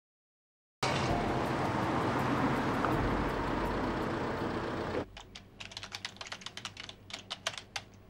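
A steady rushing noise starts about a second in and cuts off suddenly after about four seconds. It gives way to rapid typing on a computer keyboard, many quick key clicks.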